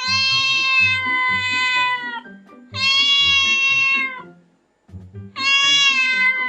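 Kitten meowing three times in long, drawn-out meows, each one to two seconds long, holding steady and then dropping slightly in pitch at the end, over background music.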